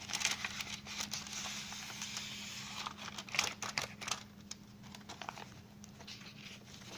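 A paper envelope being opened by hand and the folded letter pulled out, with paper tearing, rustling and crinkling. The rustling is dense over the first few seconds, then thins to a few scattered crackles.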